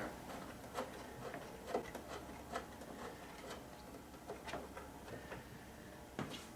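Faint, irregular small clicks and light taps from handling small objects, scattered about one or two a second.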